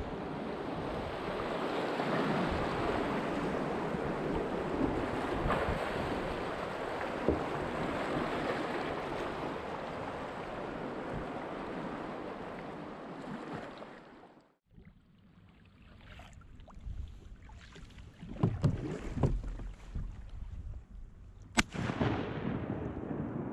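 Whitewater rapids rushing around a kayak, with wind buffeting the microphone. About two-thirds of the way through this gives way to calmer water with scattered knocks. Near the end comes a single sharp crack, a shotgun shot.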